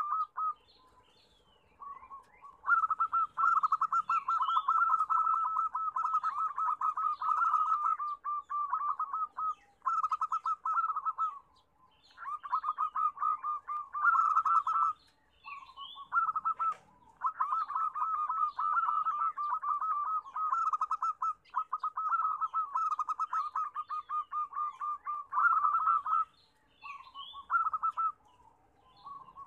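Zebra doves cooing in rapid staccato trilled phrases of a few seconds each, with short gaps between them.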